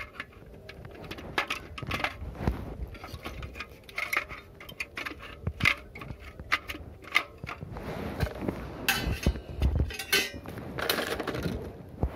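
Small metal parts of a Bluegaz gas water heater clinking and knocking irregularly as the burner assembly and brass water valve are handled and fitted back together by hand, with a few longer scraping sounds after about eight seconds.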